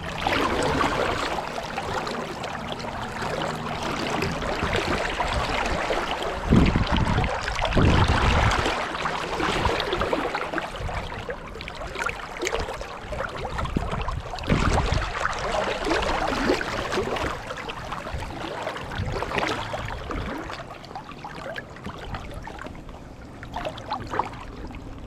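Stream rushing steadily, running high and fast after days of heavy rain. A few low rumbles break in about six to eight seconds in and again around fourteen seconds.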